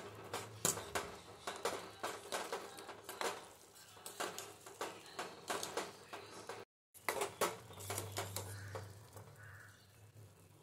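Kitchen utensils clicking and knocking in an irregular run of sharp taps, over a low steady hum. The sound drops out briefly about two-thirds of the way through, then resumes.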